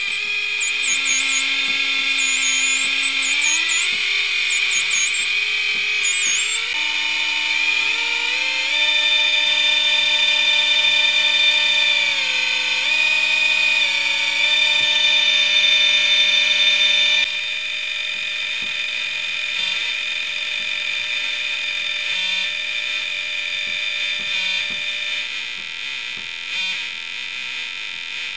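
Homemade CD40106 Schmitt-trigger oscillator synth playing through a small amplifier's speaker: several square-wave tones drone together, holding their pitches and then sliding to new ones as the pitch knobs are turned. A warbling high whistle rides on top for the first several seconds, and about 17 seconds in the sound drops in level as some of the tones stop.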